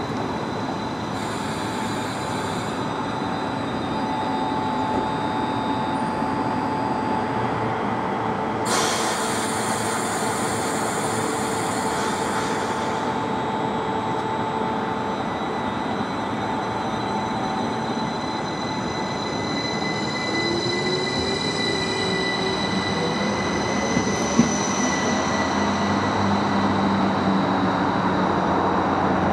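Electric multiple-unit trains at a station platform. A Northern Class 331 unit stands and pulls out, with a loud hiss of air about nine seconds in and a rising motor whine later. In the second half a Class 333 unit draws in, with high steady squealing tones building towards the end.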